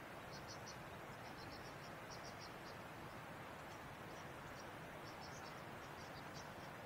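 Insects chirping faintly in quick groups of three or four short high pulses, over a steady low hiss of outdoor background.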